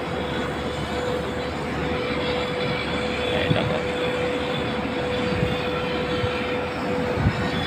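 Shipyard machinery running with a steady drone and a constant hum, with a few dull knocks in the second half.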